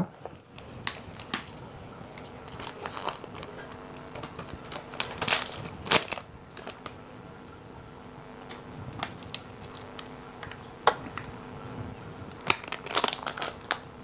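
Aluminium foil pouch crinkling and crackling as it is opened and handled, in scattered short crackles, loudest about five to six seconds in and again near the end.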